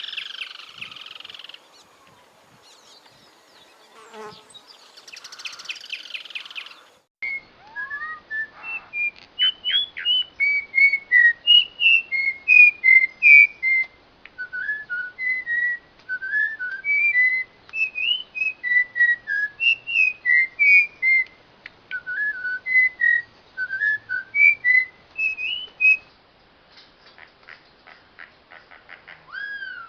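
A songbird singing: a few seconds of buzzy calls, then a long run of clear, short whistled notes slurring up and down, a few a second, trailing off near the end.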